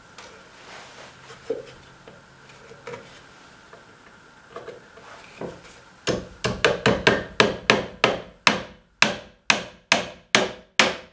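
Claw hammer driving a nail into a wooden nesting box panel. After a few seconds of light wood-on-wood handling knocks, more than a dozen sharp hammer blows follow in quick succession, about two a second.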